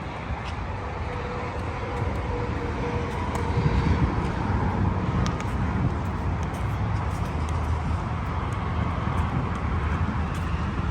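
Steady rumble and road noise of a moving car.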